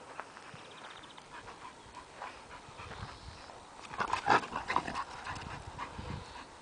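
American Staffordshire terriers wrestling: dog panting and short vocal sounds, with a louder cluster of them about four seconds in as two dogs rear up against each other.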